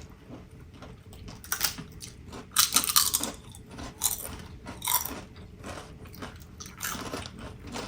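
Crunchy snack chips being chewed, with several sharp crunches at uneven intervals.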